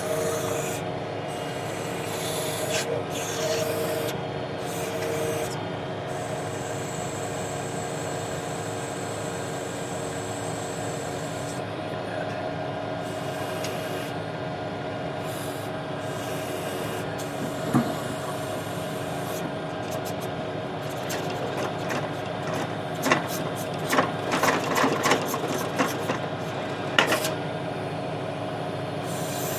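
Tractor engine running steadily, driving the PTO backhoe's hydraulic pump while it digs. From about the middle onward come scattered knocks and scrapes, thickest near the end.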